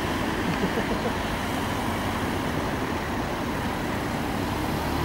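Race team support cars driving past one after another, a steady mix of engine and tyre noise.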